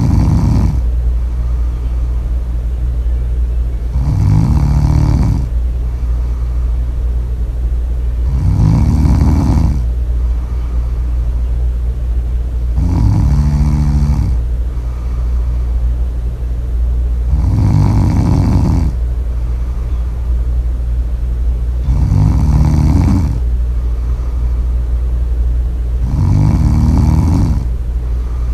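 Loud, slow snoring, one long snore about every four and a half seconds, over a steady low hum.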